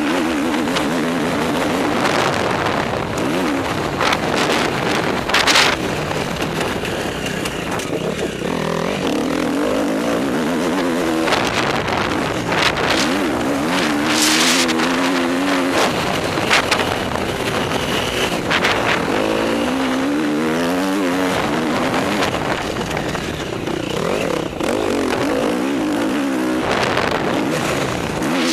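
Motocross bike engine revving up and down hard through the turns, its pitch rising and falling again and again, over a heavy rush of wind on a helmet-mounted microphone.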